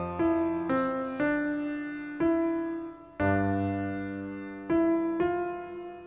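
Slow, gentle piano-style keyboard music: single notes and chords struck about once a second, each left to ring and fade before the next.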